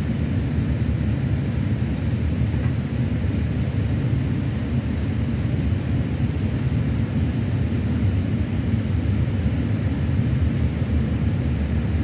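Freight train of open wagons rolling past, a steady low rumble of steel wheels on the rails.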